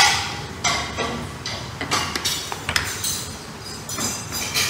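A string of irregular sharp knocks from kitchen utensils, roughly two a second, each with a short clinking ring.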